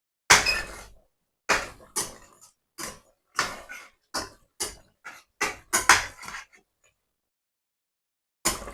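A series of irregular knocks and clatters from kitchen utensils, about a dozen sharp hits in quick succession. They stop for a moment and start again near the end.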